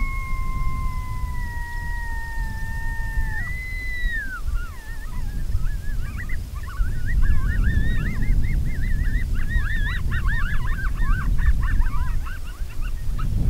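Coyote vocalizations: a long, slowly falling howl, a shorter howl, then from about six seconds on a fast, wavering chorus of yips and warbles.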